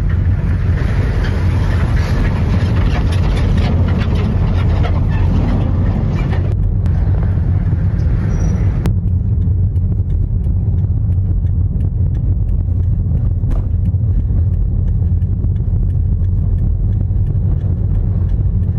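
Steady low rumble of a car driving on a highway, with road and engine noise heard from inside the cabin.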